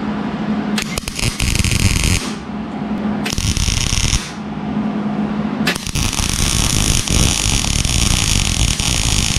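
Wire-feed welder arc crackling and sizzling on steel: two short welds, then one long continuous bead from about six seconds in. Reinforcement pieces are being welded onto a BMW E30 rear subframe. A steady low hum is heard in the pauses between welds.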